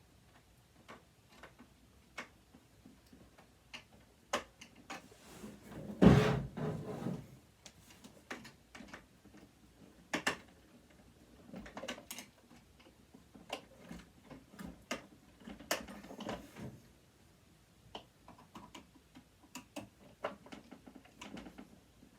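Screwdriver and loose metal parts clicking, scraping and knocking against a sewing machine's body while working at a screw that is stuck fast, with one louder knock about six seconds in.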